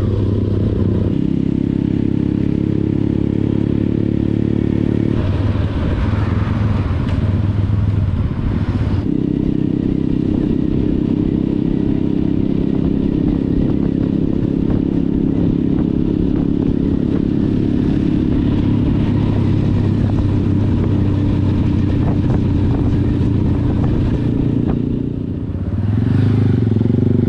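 Motorcycle engine running steadily while under way, heard from the bike itself. About five seconds in, a rushing noise swells for a few seconds. Near the end the engine eases off briefly and then picks up again.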